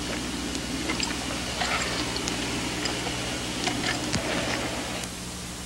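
Hiss and low hum of an old film soundtrack, with scattered crackles and clicks through the middle; the noise drops a little about five seconds in.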